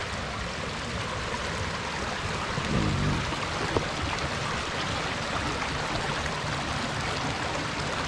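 Steady rush of a small waterfall, water pouring over rocks.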